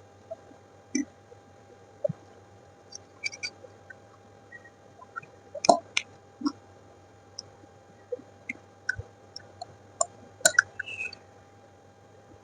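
A person eating close to the microphone: scattered wet mouth clicks and chewing, with a few louder crunchy bites about six seconds in and again near ten and a half seconds.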